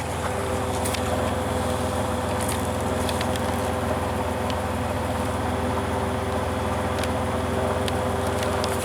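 2003 Dodge Grand Caravan's 3.8-litre V6 running at a steady speed through an open intake with the air box removed, a constant hum with a steady whine over it.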